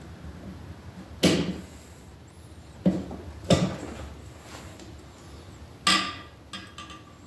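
Four sharp knocks spaced irregularly a second or two apart, with a lighter tap near the end: the piston and connecting rod of a Predator 224 engine being tapped out through the cylinder.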